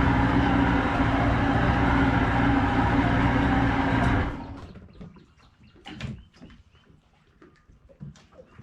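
An engine running steadily, which cuts off about four seconds in. After it, a few scattered knocks and clicks.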